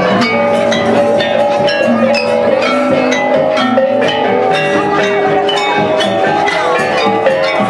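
Balinese gamelan: bronze metallophones and gongs struck in a steady stream of quick, ringing notes.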